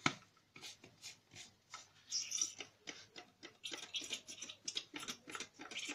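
Plastic trigger spray bottle clicking as its trigger is pumped over and over, with a few short weak spurts: the egg-and-milk glaze is too thick to pass through the nozzle.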